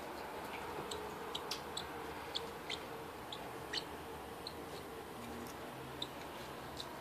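Parrotlet giving short, high chirps, a dozen or so at irregular intervals, over faint room hum.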